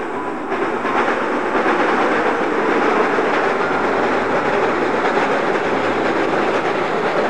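Diesel train crossing the steel trestle of the old Amarube Viaduct, its wheels and the bridge giving a steady, loud rail noise.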